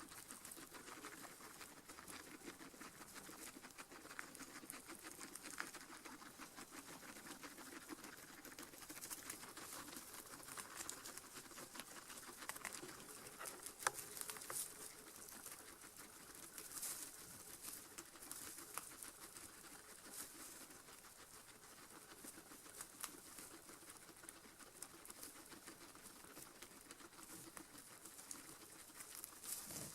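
Faint rustling and many small crunching ticks of guinea pigs moving about in loose hay and chewing it.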